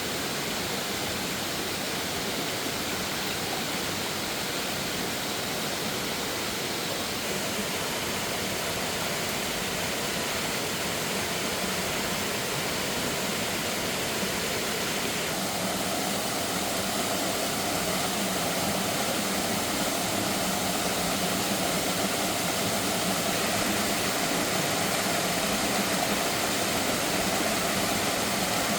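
Steady rush of fast-flowing water, its tone shifting slightly about halfway through.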